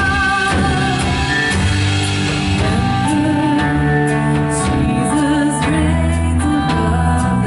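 Live worship band playing a song, with singing over sustained keys or guitar, a bass line and steady drum hits.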